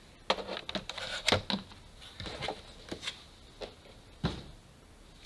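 Scattered light knocks and clicks of things being handled, irregular and spaced apart, with one heavier low thump about four seconds in.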